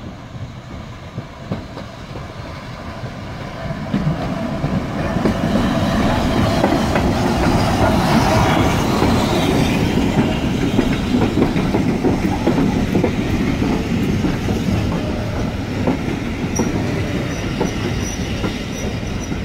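Passenger train of green heritage coaches rolling past close alongside the platform, its wheels clicking over the rail joints. It grows louder about four seconds in and stays loud as the coaches go by.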